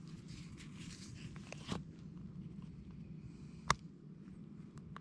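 Pliers working a fishing hook out of a softshell turtle's mouth in a landing net: faint scraping and rustling, with a light click near two seconds in and one sharp click just before four seconds in.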